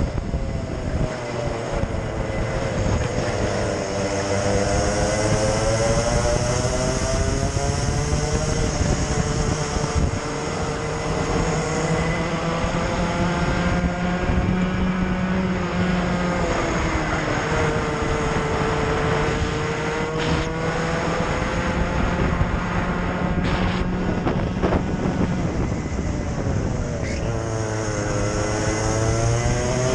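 A racing kart's two-stroke engine running flat out, heard onboard. The revs drop several times for corners and climb back up on the exits. Other karts' engines are close by near the start.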